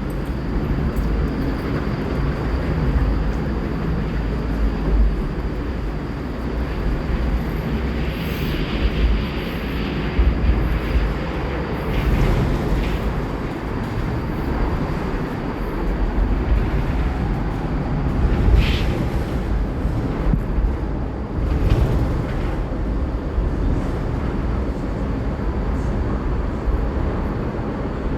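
Steady low rumble of road traffic running over the Ōnaruto Bridge deck, with a few brief louder swells.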